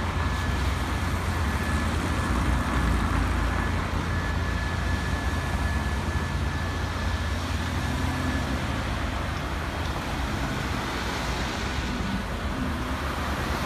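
Road traffic at a city intersection: cars idling at the light and driving past close by, over a steady low rumble.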